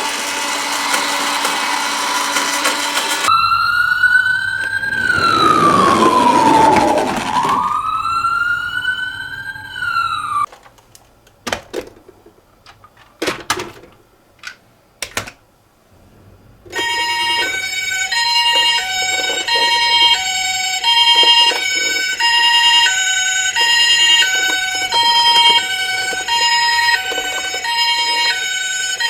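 Toy ambulance minicars' electronic sirens: after a whirring rattle, a wailing siren rises and falls for several seconds, then after a pause with a few clicks, a two-tone hi-lo ambulance siren alternates steadily about once a second in the Japanese 'pee-po' pattern.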